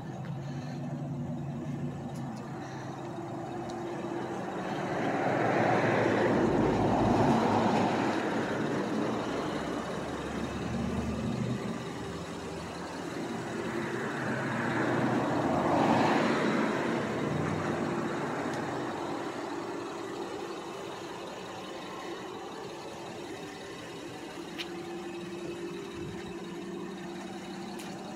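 Road traffic: two vehicles pass, about six seconds in and again about fifteen seconds in, each swelling up and fading away, over a steady low engine hum.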